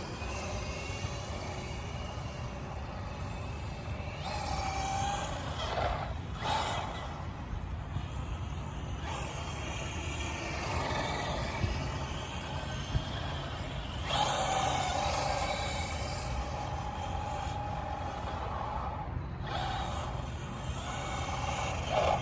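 Electric RC truck driving about, its motor whining at a steady pitch, briefly about four seconds in and again for several seconds from about fourteen seconds, over a constant low rumble.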